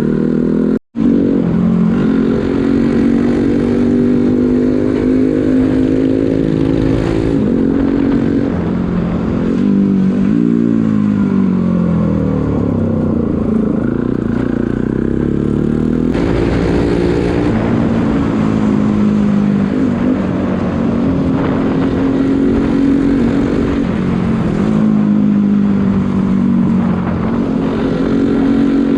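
Motorcycle engine running under way, its pitch rising and falling with the throttle through the middle, then holding fairly steady. The sound drops out completely for an instant about a second in.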